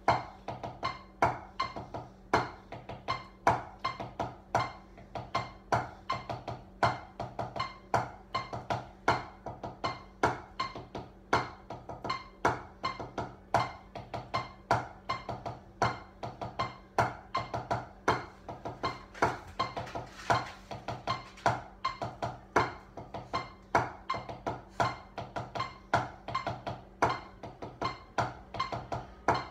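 Drumsticks striking a drum practice pad in a fast, steady rhythm, with louder accented strokes about three times a second and quicker soft strokes between.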